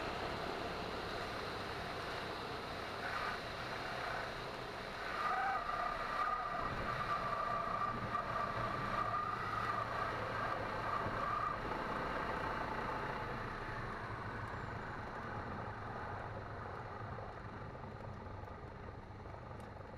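Cessna 172N touching down and rolling out: steady wind and engine noise with the engine throttled back. A high steady tone, the stall warning horn, sounds for about six seconds around touchdown. After that the noise slowly fades as the aircraft slows on the runway.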